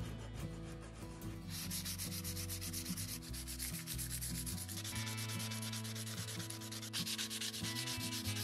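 Sandpaper rubbed by hand in quick back-and-forth strokes along a rusty iron blade, a dry scratchy rasping that starts about a second and a half in.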